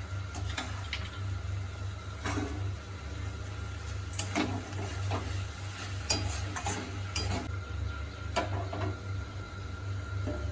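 A spatula stirring and scraping vegetables in a cooking pan after ghee is added, making irregular clicks and scrapes with a light sizzle, over a steady low hum.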